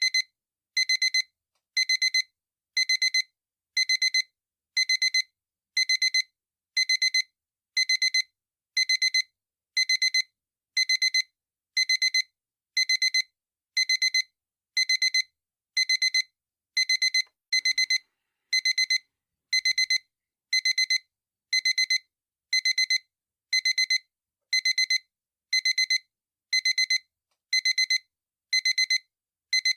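Digital alarm clock beeping: a high electronic tone in short bursts of rapid beeps, repeating about once a second.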